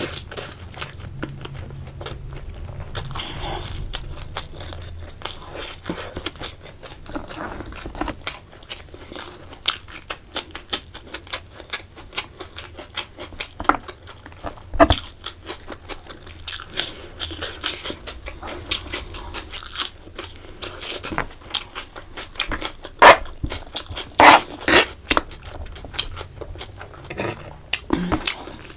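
Close-miked eating sounds: biting and chewing crunchy fried food, many short crunches and mouth clicks, with a run of louder crunches near the end.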